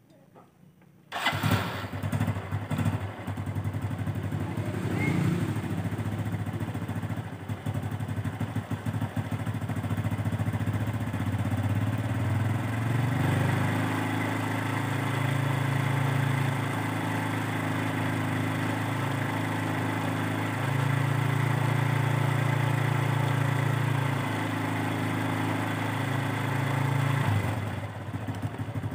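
Honda Revo Absolute 110's single-cylinder four-stroke engine being started about a second in, then running at a steady idle. The revs are raised slightly twice and drop back near the end. The clutch's damper rubbers and lining have just been replaced to cure a clattering noise.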